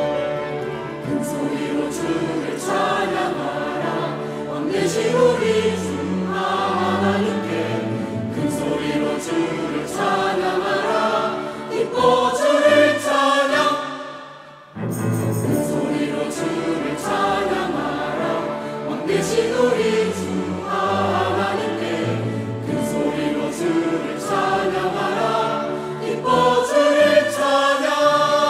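Mixed church choir singing a Korean choral anthem of praise, accompanied by a small orchestra of clarinets, strings and timpani. The music drops away briefly about halfway through at the end of a phrase, then the choir and orchestra come back in.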